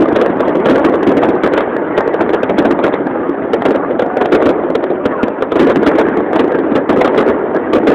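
Fireworks display crackling with many rapid pops, heard over the steady noise of a large crowd.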